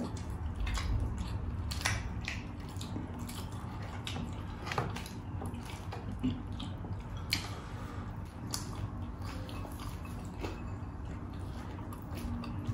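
People eating by hand, with chewing, biting and wet mouth smacks as they eat fried chicken and rice; irregular short clicks and smacks.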